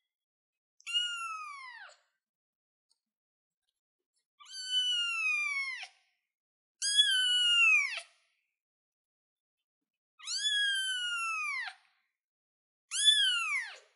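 A young ginger kitten meowing five times, high thin calls of about a second or more each that drop in pitch at the end, a few seconds apart.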